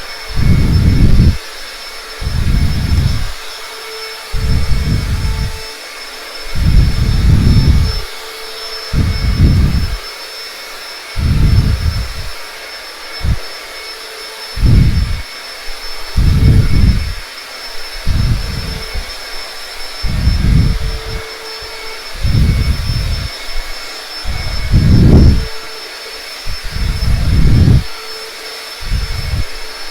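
Vacuum cleaner running with a steady high whine, broken about every two seconds by loud low rumbles that each last under a second.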